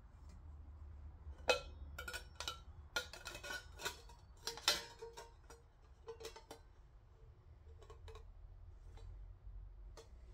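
Light metallic clinks and taps as a coiled copper tube is handled and slid over a metal stovepipe, some with a short ring. The clinks come in a quick cluster in the first half and thin out later.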